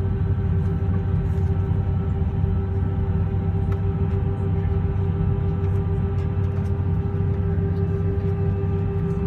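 Steady hum inside a jet airliner's cabin on the ground: a low rumble under several unchanging whining tones, the strongest a mid-pitched whine.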